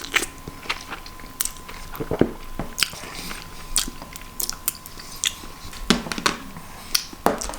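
Close-miked mouth sounds of someone chewing a mouthful of noodles, with irregular wet clicks and smacks.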